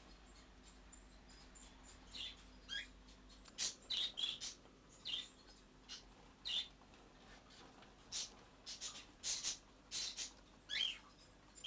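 Small caged animals chirping and squeaking: irregular short, high-pitched calls, some sliding down in pitch, often in quick clusters of two or three.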